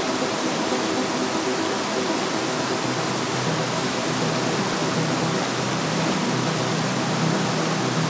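Spring-fed stream flowing and babbling, a steady, even rush of water.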